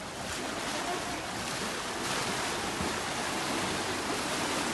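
Fast-flowing floodwater rushing past people wading and pushing a small boat: a steady, even wash of water noise.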